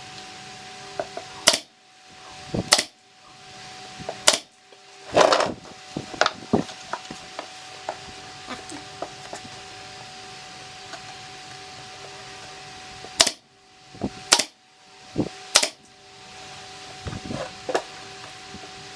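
Sharp knocks of MDF panels and a plastic speaker baffle being handled and set against each other while a wooden speaker box is assembled, in two clusters with a quiet stretch between, over a steady background hum.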